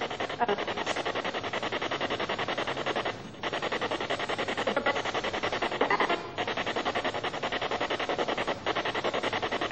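Steady hiss of static with a fast, even flutter, briefly dropping out about three seconds in.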